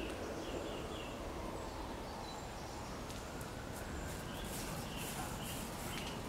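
Steady outdoor background noise, heaviest in the low range, with faint short bird chirps now and then.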